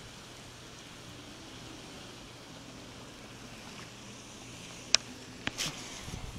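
Steady faint outdoor hiss, then near the end a sharp click, a second click and a brief swish as the fishing rod and reel are handled.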